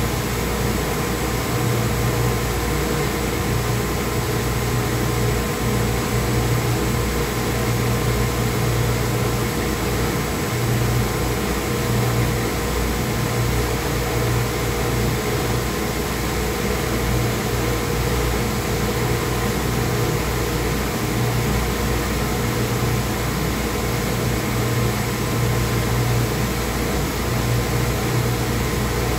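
Steady machinery hum of a running Volute ES201 dewatering screw press and its plant equipment: a constant low drone with a few steady higher tones over it and no changes.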